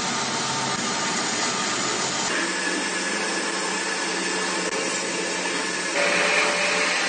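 CNC lathe running and machining, a steady mechanical whir with several steady tones. The tones change abruptly about two seconds in, and again near six seconds in, where it grows a little louder.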